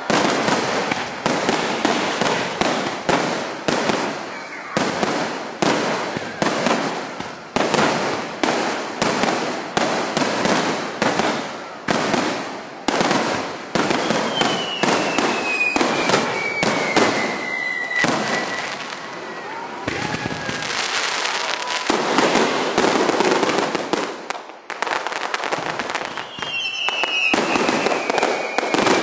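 Aerial fireworks display: shells bursting in a rapid string, several bangs a second. Twice, around the middle and near the end, a whistle falls in pitch over the bangs.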